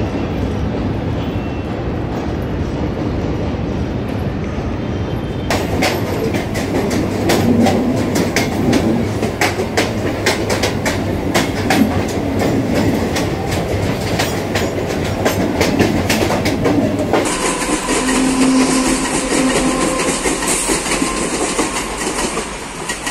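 Mumbai suburban electric local train running, with a steady rumble. About five seconds in, a long run of rapid wheel clicks over rail joints begins. About two-thirds of the way through it gives way abruptly to a smoother running sound with a faint steady whine.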